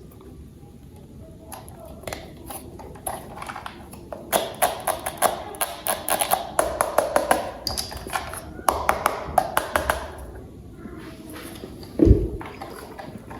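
Rapid clicks and taps of toy pieces being handled and fitted together, with one heavier thump about twelve seconds in.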